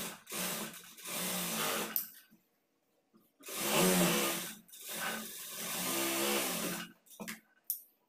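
Electric sewing machine stitching a seam in stop-start runs: several short runs, a pause of about a second, then a longer run of about three seconds. A few sharp clicks near the end.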